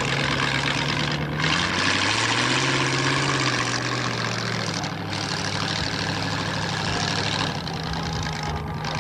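Formula Offroad buggy's engine revving hard as it pulls away and climbs a dirt hill, its pitch rising about two seconds in and falling back a little later, over a steady engine drone and a loud hiss.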